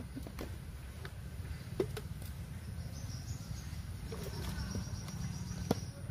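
Plastic bucket lid being handled and pressed shut, giving a handful of short sharp clicks and knocks over a low steady rumble. A faint high steady tone runs through the second half.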